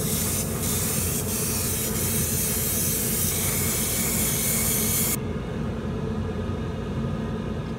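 Airbrush spraying silver lacquer onto a plastic model car body, a steady hiss that stops abruptly about five seconds in. A steady low hum runs underneath throughout.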